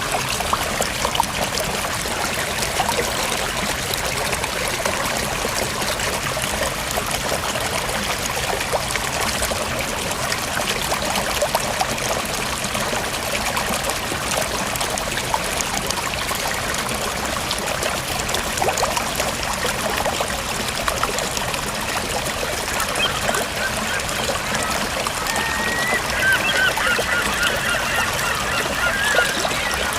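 River water flowing steadily, an even rushing and trickling. About three-quarters of the way through, waterfowl start calling over it, again and again.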